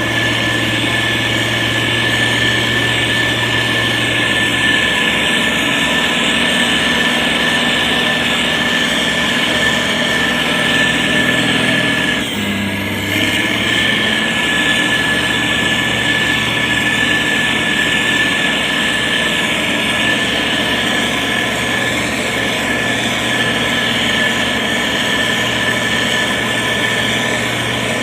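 Heavy road-construction machine's diesel engine running steadily, with a constant high whine over the low engine hum. The engine note dips briefly about twelve seconds in.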